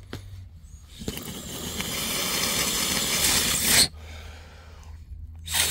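Air blown by mouth backwards through a used, dirt-clogged in-line fuel filter, hissing as old fuel and residue are forced out and bubble into a tub of fuel. One long blow starts about a second in, builds and cuts off sharply; a second blow begins at the very end.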